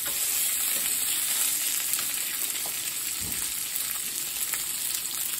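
Pelmeni frying in a pan with a steady sizzle. A wooden spatula stirring them gives a few scrapes and taps.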